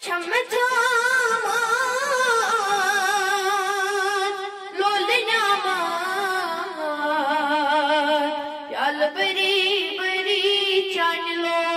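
A boy's voice singing a Kashmiri naat unaccompanied, holding long notes with a wavering vibrato. The singing breaks off briefly twice, the second time picking up with a sharp rise in pitch.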